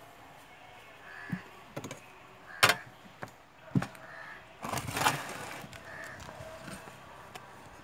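Crows cawing a few times in the background. Hands handle food on a banana leaf, with a sharp click about two and a half seconds in, a low knock a second later, and a rustle around five seconds in.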